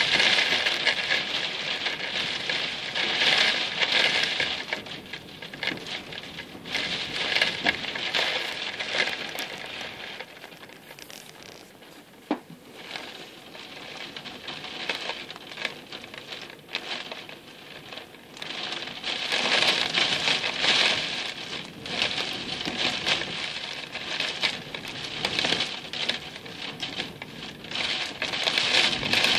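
Heavy wind-blown rain pattering, surging loud in gusts and easing off for a while in the middle before building again.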